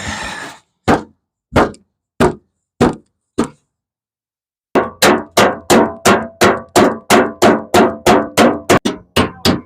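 Hammer blows: five spaced strikes, then after a short pause a fast steady run of about three strikes a second, each blow ringing briefly.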